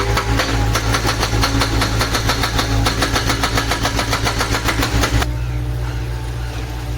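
Excavator-mounted hydraulic breaker hammering in a rapid, even rhythm of several blows a second over the excavator's diesel engine. The hammering stops about five seconds in, leaving the engine running.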